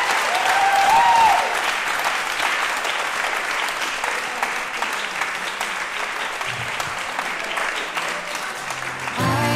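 A room full of guests applauding steadily, with voices calling out over it in the first second or so. Music starts just before the end.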